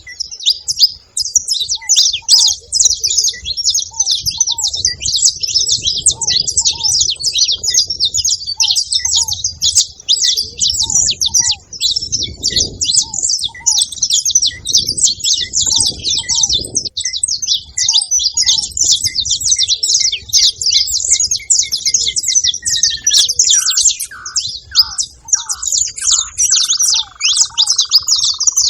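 Saffron finch chirping and chattering rapidly without pause, high-pitched and busy. Fainter short notes repeat about once a second underneath, and near the end a lower whistle slides downward.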